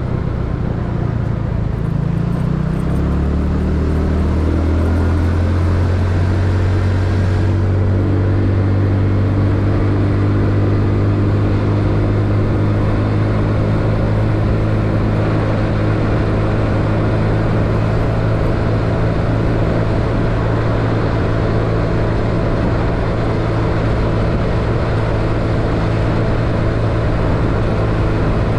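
Yamaha Mio scooter's small single-cylinder four-stroke engine running while riding, with steady road noise. The engine note drops about two seconds in, then holds steady.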